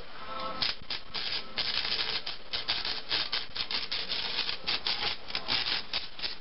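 Electric arc welding on a steel driveshaft: the arc crackling and sputtering in short, irregular stop-start bursts.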